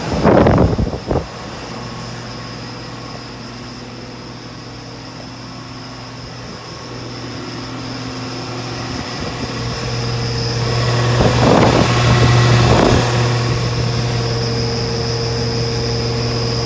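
Dual 2016/17 Rheem central air conditioner condensing units running: a steady low compressor hum with the condenser fans. The hum grows louder about ten seconds in, with a few brief noisy rustles just after.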